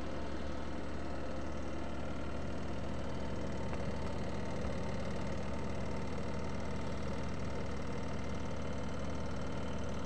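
Sharp ES-T75NT-BL twin-tub washing machine running, its electric motor giving a steady, even hum with a light vibration.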